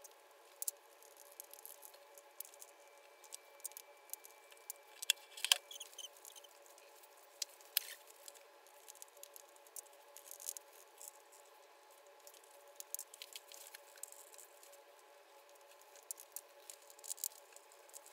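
Hands rolling play dough into ropes between the palms and laying them on a wooden tabletop: faint, scattered soft taps, rubs and clicks, with a louder cluster about five seconds in.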